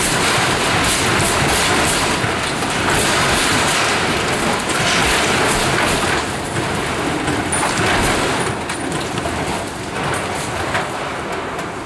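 Six-story cold-formed steel-framed building shaking on a shake table under simulated earthquake motion: a steady rumble with a dense clatter of rattles and knocks from the structure, easing off a little in the last two seconds.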